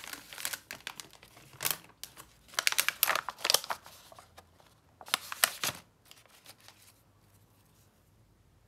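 Thin clear plastic packaging film and a plastic clamshell tray crinkling and crackling as they are handled, in several short spells during the first six seconds or so.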